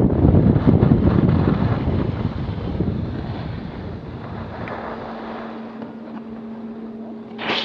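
Wind buffeting an action camera's microphone and skis sliding on packed snow, loud at first and dying away over about four seconds as the skier slows to a stop. A steady low hum comes in about halfway through, and there is a short louder burst near the end.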